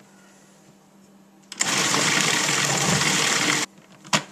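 Food processor pulsed once, its blade chopping torn dried tobacco leaves for about two seconds, starting and stopping abruptly. A sharp click follows shortly after.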